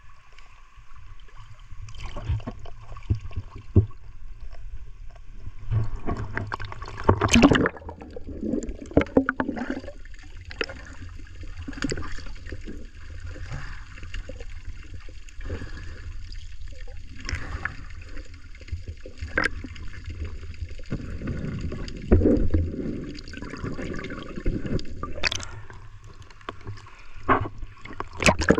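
Seawater sloshing and gurgling around a camera held at the surface and dipped underwater, heard muffled with a low rumble. Irregular splashes and knocks throughout, the loudest about seven seconds in and again past the twenty-second mark.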